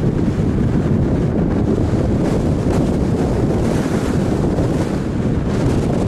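Steady, loud wind noise rushing over the microphone of a camera on a moving car, with some road noise mixed in.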